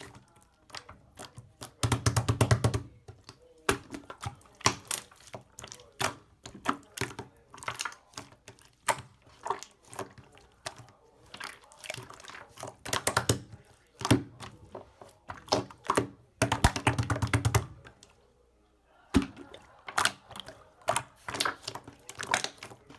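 Hands mixing and squeezing slime: irregular sticky clicks and pops, with two runs of fast crackling clicks about 2 seconds in and again near 17 seconds.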